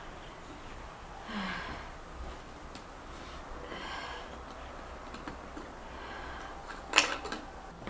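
A person's soft breaths and faint sighs, with one short, sharp sound about seven seconds in.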